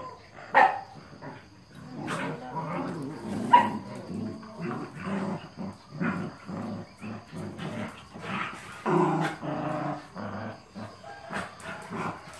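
Small long-haired dogs play-fighting, growling and barking in short bursts. There are sharp loud barks about half a second and three and a half seconds in, and a longer bout around nine seconds in.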